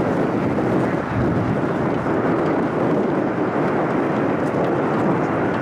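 Fighter jet engines passing overhead: a loud, steady rumbling roar with no sudden changes.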